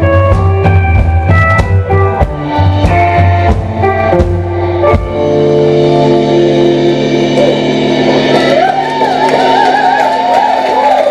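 Live rock band playing loud: electric guitars and drum kit. The drums stop about five seconds in while the guitars ring out held notes, and a wavering, bending high line comes in near the end.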